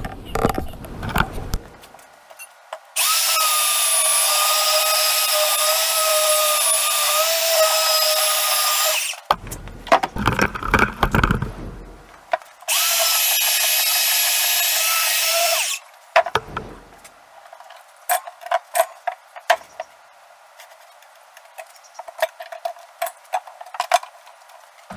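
Portable band saw cutting steel square tubing: a steady motor whine whose pitch wavers under load, running for about six seconds, then a second, shorter run of about three seconds. Clatter from the tool and metal being handled comes before, between and after the two runs.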